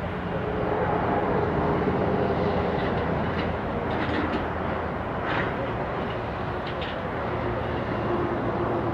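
Boeing 767-300ER's twin jet engines at takeoff thrust during the takeoff roll: a loud, steady rumble with a faint whine, swelling slightly about a second in.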